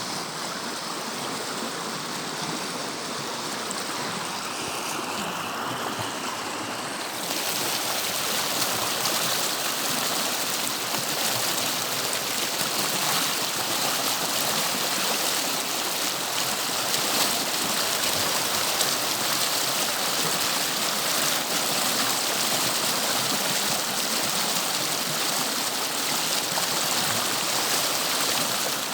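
Tibagi River water flowing in a steady rush; about seven seconds in it becomes louder and brighter in tone and stays so.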